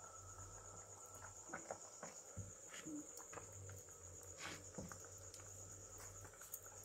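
Crickets trilling steadily in one high, even tone, with a few faint knocks and scrapes as a clay cooking pot is handled and lifted off a wood fire.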